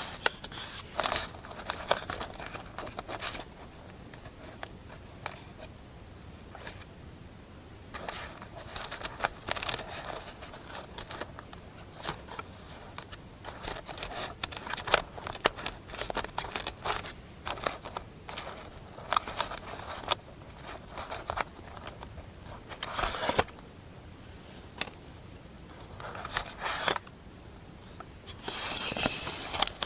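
Scissors snipping paper, mixed with paper being handled and rustled, in short irregular bursts and clicks with quieter stretches between.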